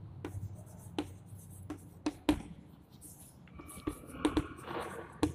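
Chalk writing on a blackboard: scattered sharp taps as strokes begin, with a longer scratching stretch from about three and a half to five seconds in.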